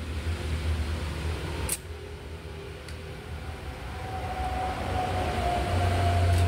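A steady low hum, with one light click a little under two seconds in and a faint thin whine over the last couple of seconds.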